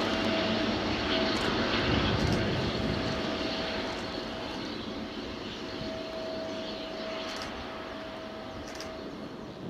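Boeing 777-300ER's GE90 jet engines running at taxi power: a steady rushing hum with a thin steady whine, slowly fading as the airliner turns away.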